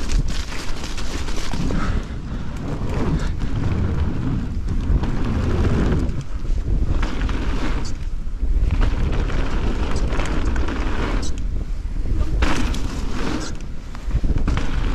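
Wind buffeting the helmet-camera microphone and mountain-bike tyres rolling over a dirt trail at speed, with irregular knocks and rattles from the bike over bumps and jumps.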